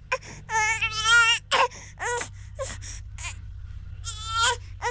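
Newborn baby crying in wavering, pitched cries: a long cry about a second in, a few short ones after it, and another strong cry near the end.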